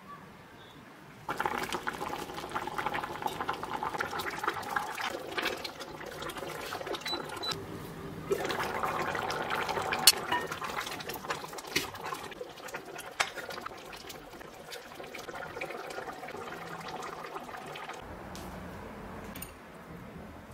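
Water running from a kitchen tap and splashing into a vessel. It starts suddenly about a second in, gets louder partway through, and cuts off near the end.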